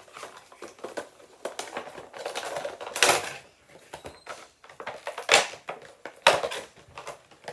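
A Funko Pop's cardboard box and plastic insert being handled and opened by hand: a run of clicks and crinkles, with louder rustles about three seconds in and twice near the end.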